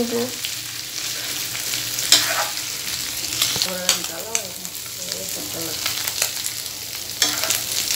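Beef tripe sizzling as it fries in oil in a dark nonstick pan, stirred with a silicone spatula that scrapes and clicks against the pan now and then. The pieces are being fried down dry until dark and crisp-edged.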